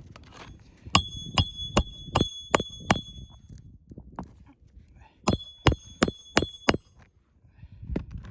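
Hammer driving roofing nails to refasten a replaced asphalt shingle: two runs of sharp blows, six then five, about two and a half a second, each with a short metallic ring.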